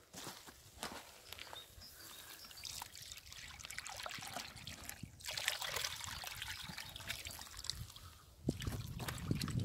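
Water trickling and pouring out of a tipped plastic bucket into a pond as live fish slide out with it, with small splashes; it grows louder about halfway through, and a low rumble comes in near the end.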